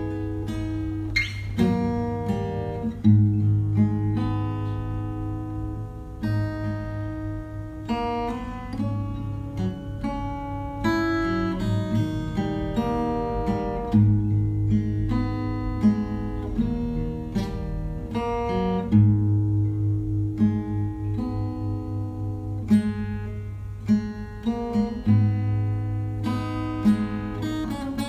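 Background music: acoustic guitar picking and strumming over sustained low bass notes.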